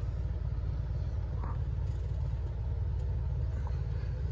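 Steady low background rumble with a few faint, light knocks.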